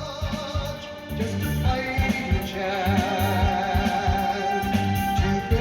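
Background music: a song with a singer holding a long, wavering note over a steady beat.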